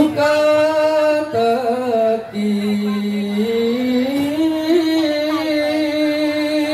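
Sholawat, Islamic devotional singing, coming over a loudspeaker system: long held notes that step lower about two seconds in and climb back up by about four seconds, with small ornamental turns near the end.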